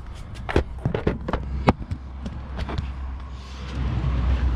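A quick run of about ten sharp knocks and clicks over the first few seconds, one louder than the rest, then a low steady rumble that comes in near the end.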